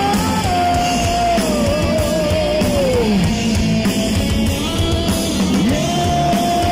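Heavy metal band playing live, with electric guitars, bass guitar and drum kit. A high lead line holds and wavers, falls away about three seconds in, and comes back as a long held note near the end.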